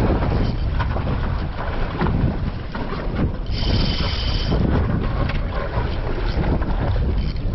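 Wind buffeting the microphone on a boat at sea, a steady low rumble with scattered knocks, and a brief high hiss about halfway through.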